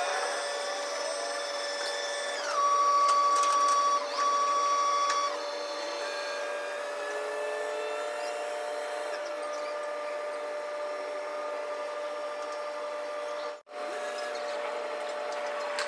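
Steady mechanical whine of construction-site machinery, made of several held tones. A louder, higher whine comes in about two and a half seconds in, shifts in pitch, and stops after about five seconds. The sound cuts out for an instant near the end.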